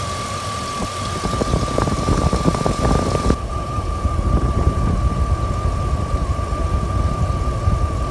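1999 Jeep Grand Cherokee WJ's 4.7-litre V8 idling slightly rough, with a steady high whine over the engine note. The owner has ruled out vacuum leaks, injectors, plugs and coils, and suspects a bad power steering pump adding drag.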